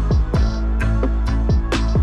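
Electronic background music with a steady beat of deep kick drums, about two a second, over sustained bass notes.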